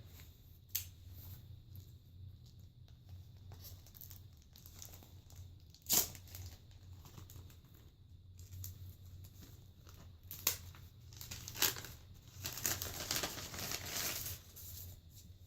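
Packaging around a patch being torn open and crinkled by hand, with a few sharp snaps and a longer tearing rustle near the end.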